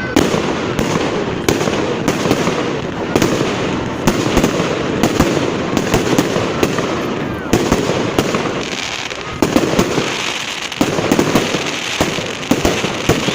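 Fireworks display going off in a rapid, irregular run of bangs and pops, with spectators' voices continuing underneath.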